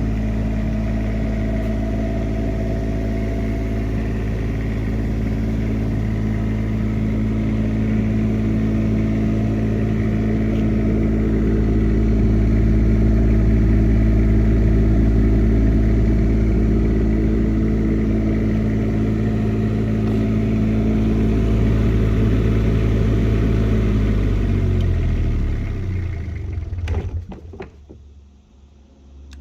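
Onan 7.5 kW diesel generator running steadily, then shut off about 25 seconds in, its engine slowing and winding down to a stop with a few clicks near the end.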